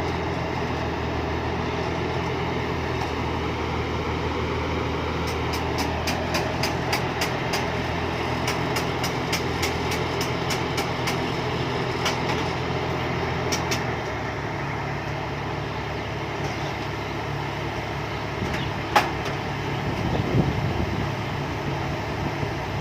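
Combine harvester's diesel engine running steadily, with a run of quick metallic ticks over several seconds in the middle. Its note drops lower a little past halfway, and a sharp click and a low thump come near the end.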